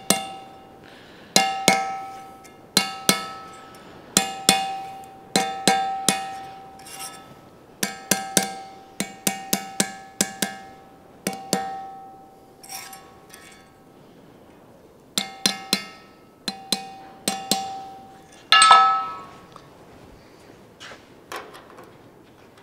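Hammer striking a fabricated sheet-steel gutter section on a steel bench, tapping a low edge up. The blows come in pairs and small groups, each with a short metallic ring, with a longer, brighter clang about nineteen seconds in.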